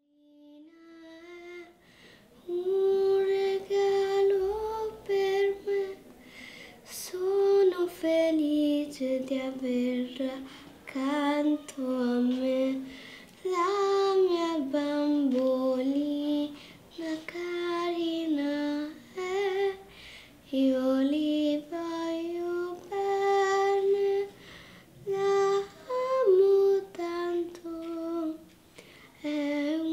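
A young girl singing a slow tune alone, unaccompanied, in long held notes with short breaks between phrases; it starts faintly and grows to full voice within the first few seconds.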